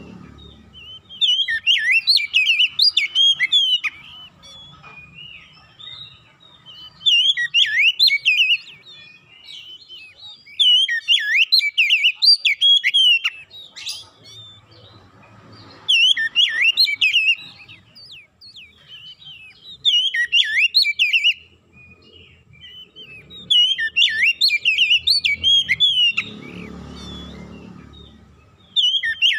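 Oriental magpie-robin (kacer) singing in loud bursts of rapid, varied chirps and whistles, each lasting a couple of seconds, repeated about every three to four seconds with short pauses between.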